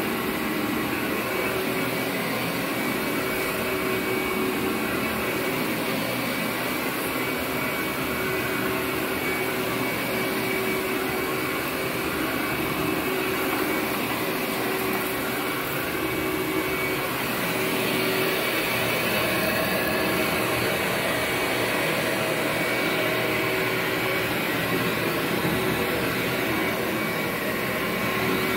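Workhorse upright vacuum cleaner running steadily as it is pushed over carpet, its motor giving a constant-pitched hum that gets a little louder about two-thirds of the way in.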